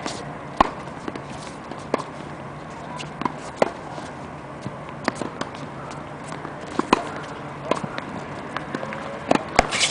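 Tennis balls being struck with racquets on the courts: short sharp pops, several coming about a second and a half apart like a rally, over a steady outdoor hiss.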